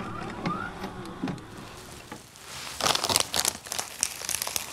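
Crinkling and crackling of plastic packaging being handled, a run of sharp crackles loudest about three seconds in.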